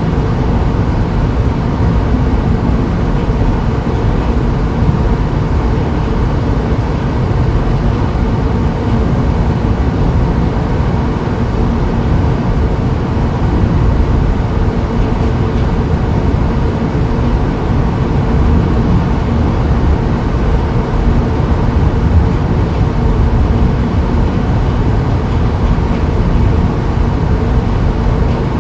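Steady, loud, low rumbling noise with a faint hum, unchanging throughout.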